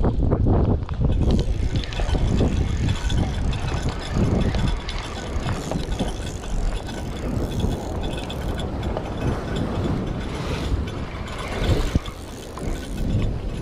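Spinning fishing reel being cranked, its gears whirring, over wind buffeting the microphone and waves washing against the rocks.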